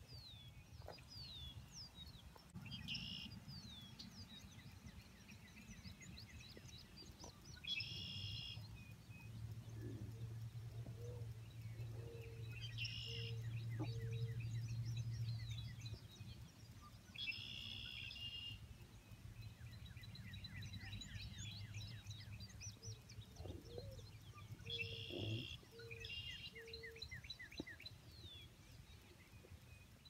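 Birds singing and calling, faint: a short high buzzy song phrase repeated every four to five seconds among many quick chirps, and twice a run of a few short low notes. Under them runs a low steady rumble that is loudest about halfway through.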